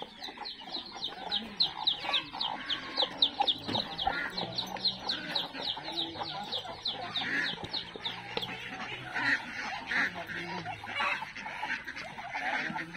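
Free-range chickens clucking, with a rapid, even run of short, high falling chirps, about four a second, that stops about eight seconds in.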